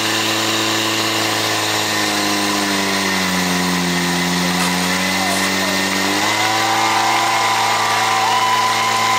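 Portable fire pump engine running hard as it feeds water to the hose nozzles. Its note drops for a few seconds in the middle, then climbs back.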